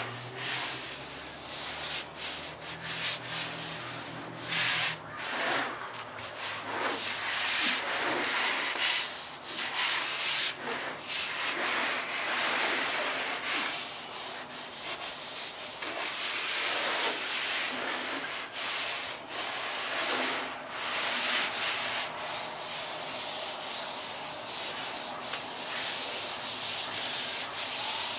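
Irregular rubbing and scraping of a flexible Filon fiberglass sheet as it is pushed by hand against a freshly glued trailer roof, swelling and dipping as the hands move across it.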